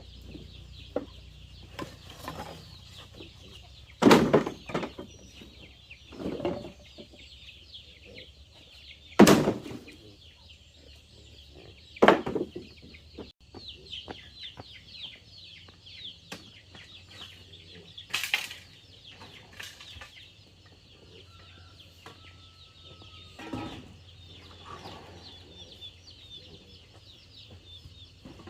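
Chickens clucking now and then, with several loud, short sounds about 4, 9 and 12 seconds in and again near 18 seconds, over a steady high-pitched buzz.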